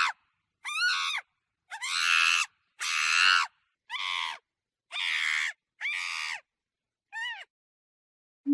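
Monkey screeching: seven short, shrill calls about a second apart, each rising and falling in pitch, with dead silence between them.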